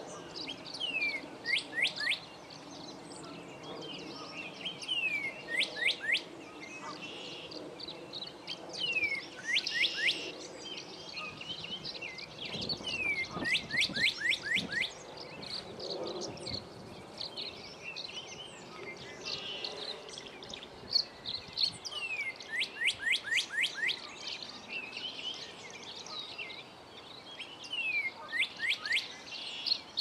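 Male northern cardinal singing: clear whistled phrases repeated every few seconds, each a slurred note followed by a quick run of downslurred notes. A faint low hum sits behind the song.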